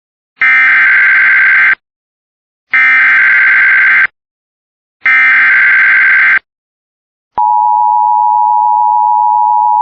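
Emergency Alert System SAME header: three identical bursts of rapid digital data warble, each about a second and a quarter long with short gaps between. About seven seconds in, a steady attention tone begins. Together they signal the start of an alert, here a severe thunderstorm warning.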